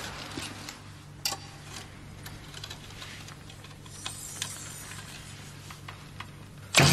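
Low steady hum with a few faint clicks, then near the end a sudden loud whack as an arrow shot from a bow strikes a watermelon.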